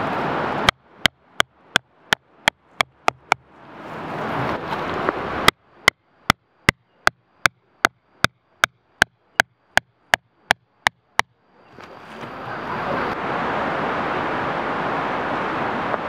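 Tent peg being hammered into the ground with a hand mallet: two runs of sharp, even knocks, about three a second, the second run longer. A steady rushing noise fills the gaps before, between and after.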